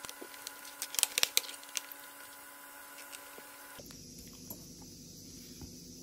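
Sharp plastic clicks and taps as the RAM access cover on the underside of an HP Pavilion G-series laptop is pressed back into place and handled, bunched in the first two seconds, loudest a little after one second in. After that there is only faint background noise.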